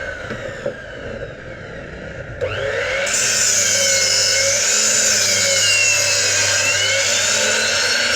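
A woodworking power tool running, its pitch dipping and rising; the sound changes abruptly about two and a half seconds in.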